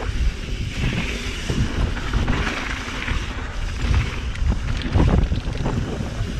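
Wind rushing over the microphone of a rider's camera on a Trek Remedy 9.8 full-suspension mountain bike, with the tyres rolling over a dirt trail and the bike knocking and rattling over bumps.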